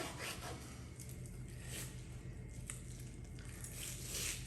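Kitchen knife cutting through raw salmon on a cutting board: soft, wet, squishing strokes with a sharp click about two and a half seconds in, over a faint steady hum.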